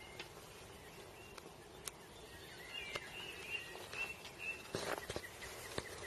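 Faint woodland ambience with birds chirping now and then, mostly in the middle, a few scattered soft clicks, and a short rustle about five seconds in.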